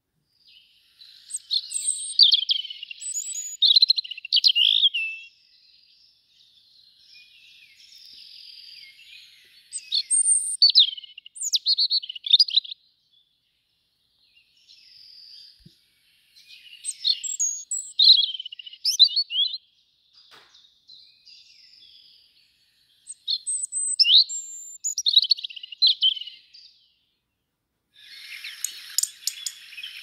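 European robin singing: four high, varied song phrases of a few seconds each, separated by pauses, with quieter song in the gaps. Near the end a denser hissing, crackling sound sets in.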